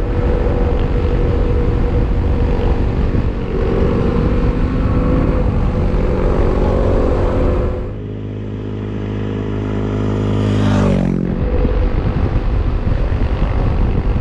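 Motorcycle riding on a road with heavy wind noise on the microphone over the engine. About eight seconds in the wind drops as the bike slows and the engine note comes through clearly, then the pitch climbs steeply as it accelerates and the wind noise returns.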